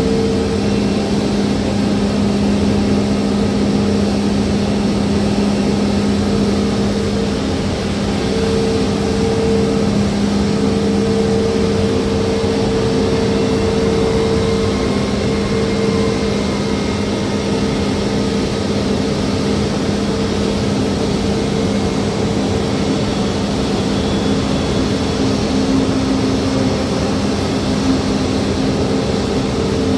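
Turbofan engines of a Frontier Airlines Airbus A320-family jet running at taxi idle: a steady drone with two constant hums, one low and one higher, over a broad rushing noise.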